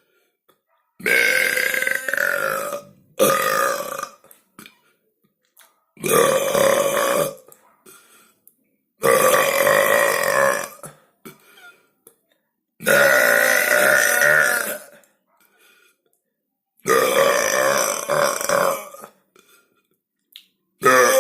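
A person burping loudly, six long belches in a row with short silences between, each lasting one to two seconds, and another starting right at the end.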